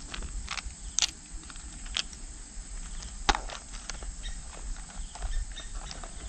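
Scattered sharp clicks and light knocks of a plastic lure tackle box being handled and snapped shut, over a low rumble.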